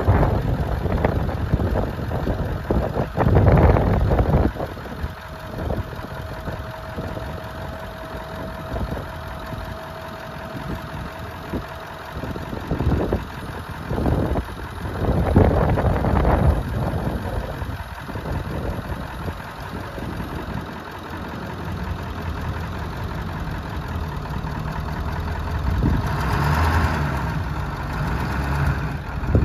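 Ford F-Super Duty dump truck's engine running at idle while the hydraulic hoist raises and lowers the dump bed. A thin steady whine lasts several seconds in the first half, and the engine surges louder a few times.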